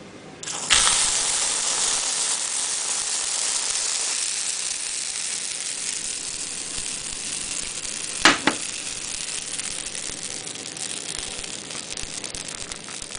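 Pancake batter sizzling steadily in a hot non-stick frying pan; it starts abruptly about half a second in, as the batter is sprayed from an aerosol Batter Blaster can. A short, sharp double knock comes a little past the middle.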